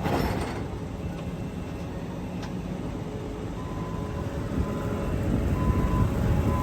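Combine harvester's diesel engine running steadily under a low-pitched drone, with a short rush of noise at the start and the engine getting a little louder near the end.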